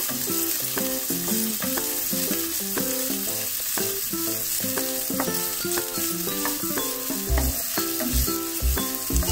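Diced vegetables (peas, tomato, capsicum, green chilli) sizzling in hot oil in a nonstick kadhai, stirred and scraped with a wooden spatula while being lightly sautéed. Background music of short pitched notes plays along.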